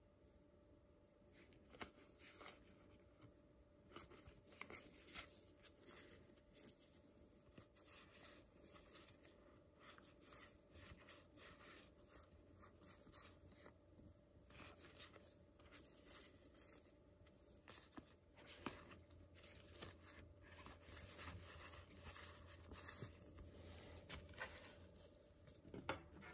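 Faint rustling and soft clicks of trading cards being slid and flipped one by one in gloved hands.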